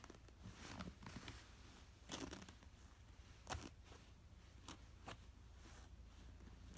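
Near silence with a low room hum, broken by a few faint rustles and soft clicks, the sharpest about three and a half seconds in.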